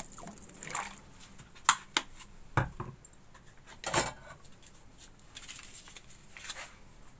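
A short trickle of vinegar poured into a stainless steel bowl of onion and garlic near the start, then a few light knocks and clinks of kitchen things being handled and set down, the loudest about four seconds in.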